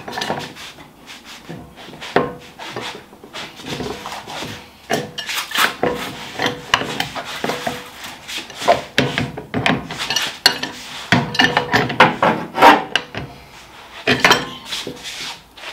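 A breaker bar and socket working the wheel nuts of a VW Beetle's wheel: irregular metal clanks, knocks and scrapes.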